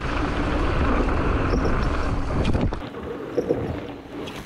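Wind buffeting the microphone over a low rolling rumble, as from a mountain bike riding along a dirt trail; it starts abruptly and dies down after about three seconds, with a few short knocks toward the end.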